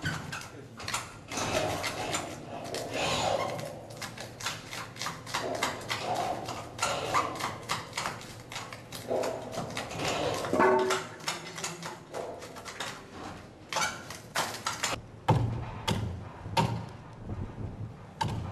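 Irregular knocking and clattering of hand assembly work on steel-framed prefab wall panels, with heavier thuds near the end.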